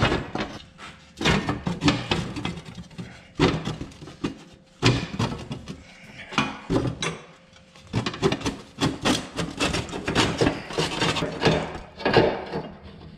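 Rusty steel diamond-plate floor panel of a vintage Clark forklift rattling, scraping and clanking against the frame as it is shaken and worked loose by hand. It comes in irregular bunches of knocks and metal-on-metal scrapes, with short pauses between.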